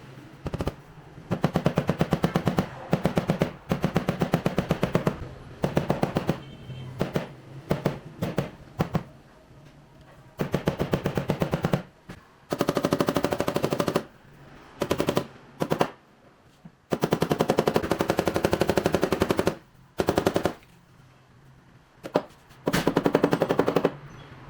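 Air-powered shop tool hammering in rapid machine-gun-like bursts, about a dozen bursts of one to two seconds each with short pauses between.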